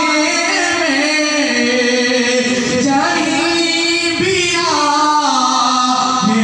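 A man's voice chanting an Islamic devotional recitation in a melodic, ornamented style, holding long notes that glide up and down in pitch.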